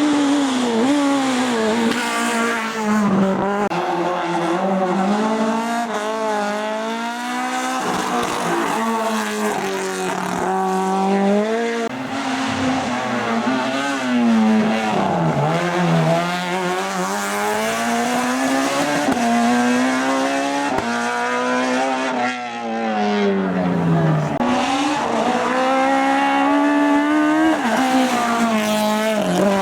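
Hillclimb race car's engine at full throttle, its revs climbing and dropping again and again through gear changes and braking for corners.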